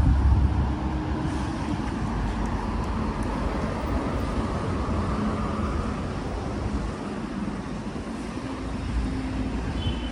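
Steady city road traffic: a continuous rumble of passing cars and engines, heaviest in the first second.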